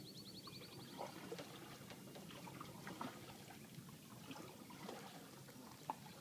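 Quiet pond-side ambience: a quick high-pitched bird trill in the first second, then only faint scattered ticks and knocks.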